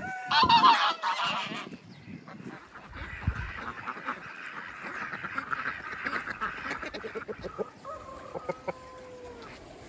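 Farmyard animals calling: a loud burst of pitched calls about half a second in, then a few fainter calls near the end.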